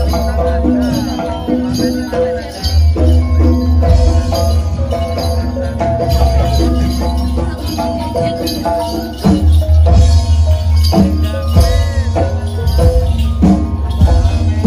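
Loud East Javanese jaranan gamelan music: metallophones playing a stepping melody over a heavy, steady low bass, with frequent drum strikes and jingling bells.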